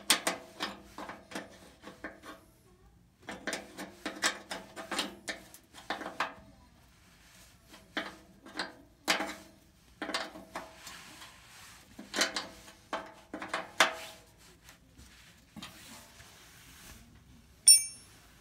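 Steel wrench clinking on the bolt of a blower's bearing-bracket arm as the bolt is turned, in repeated bursts of small metal clicks, each with a short ring. One sharp, ringing metal clink near the end.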